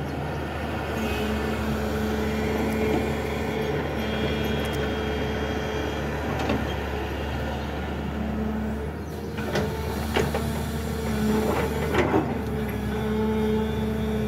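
SANY long-reach hydraulic excavator's diesel engine running steadily as the boom swings and digs, with several short, sharp scraping or clanking sounds about two-thirds of the way through.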